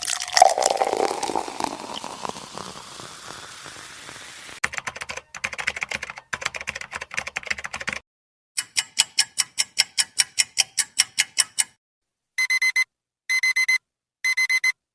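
A run of stock sound effects: a loud noisy hit that fades away over about four seconds, a rapid rattling clatter of clicks, then fast even ticking at about six ticks a second. Near the end a digital alarm clock beeps in four short bursts of rapid high beeps.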